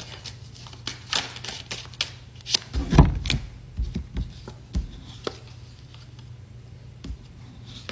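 Tarot cards being handled and laid down: a run of short clicks and taps, with one heavier thump about three seconds in, over a low steady hum.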